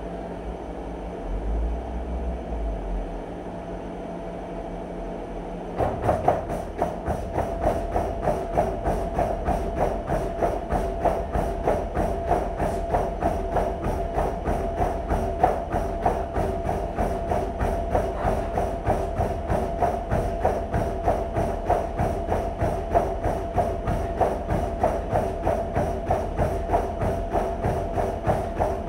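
Treadmill motor and belt running with a steady whine. About six seconds in a runner steps on and sprints, and fast, even footfalls pound the belt, about three a second.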